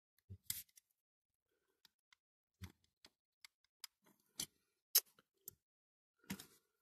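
Irregular small clicks and taps of die-cast toy lorry parts being handled and worked, a dozen or so scattered hits with the sharpest about five seconds in.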